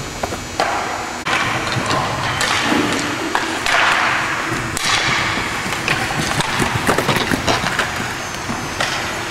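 Hockey play on a rink: skate blades repeatedly scraping and carving, each scrape starting sharply and fading, among frequent sharp clacks and knocks of sticks on the puck and each other.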